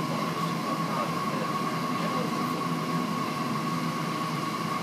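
Steady mechanical hum with a constant high whine running through it.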